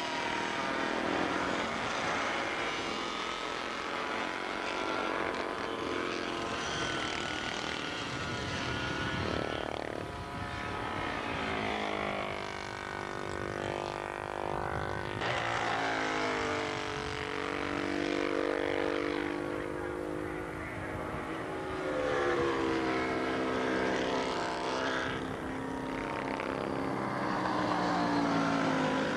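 Several racing motorcycles' engines running hard as the bikes pass one after another, the engine notes rising and falling in pitch as they accelerate, change gear and go by.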